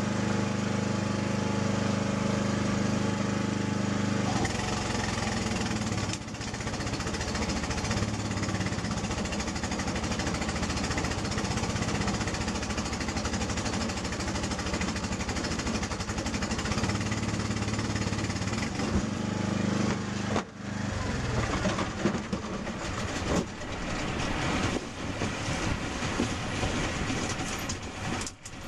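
Boat motor running under way across choppy water, mixed with rushing water and wind on the microphone. The motor's steady tone is clearest in the first few seconds; after that the sound turns rougher and gusty, with sharp swings in level near the end.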